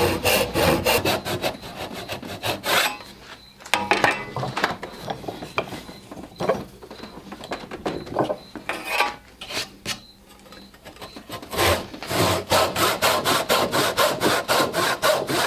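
Large backsaw (tenon saw) rip-cutting down a tenon cheek in spruce-pine-fir 2x stock held in a bench vise, in repeated back-and-forth strokes. The strokes come fast and even at first, thin out and go quieter through the middle, then pick up again near the end.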